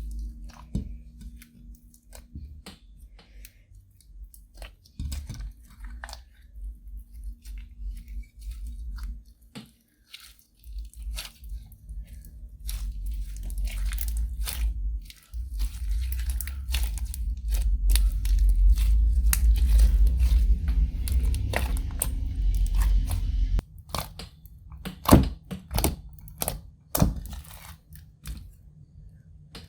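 Hands squishing, stretching and kneading clear slime with crushed eyeshadow mixed in: sticky crackling and popping throughout, with heavier, denser kneading in the middle and a couple of sharp pops near the end.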